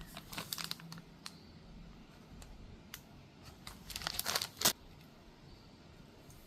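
Packaging crinkling as it is handled, in two bursts of crackling about three seconds apart; the second burst is the louder and ends in a sharp click.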